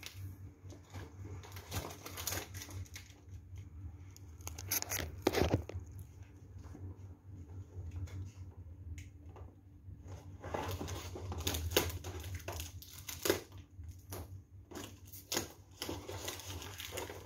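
A delivery package being opened by hand: irregular tearing, crinkling and rustling of the packaging, with scattered sharp crackles.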